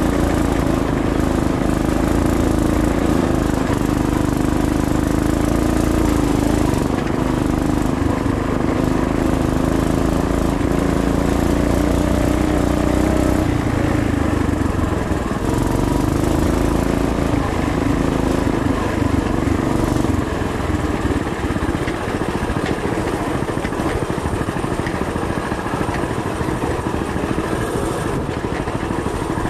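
Coleman BT200X mini bike's single-cylinder four-stroke engine running steadily under way, easing off briefly about halfway in and running lower from about two-thirds of the way through.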